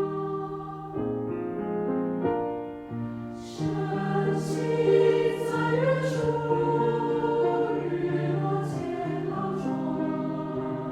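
Choir singing a Chinese-language choral song in sustained, slowly changing chords, with crisp sibilant consonants sung together several times through the middle.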